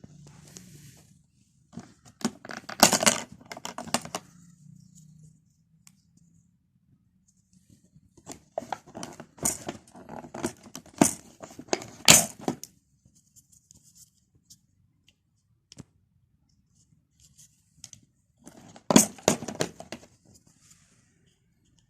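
Small toys being handled, in three bursts of quick clicking and rattling clatter: one near the start, a longer one in the middle and a short one near the end.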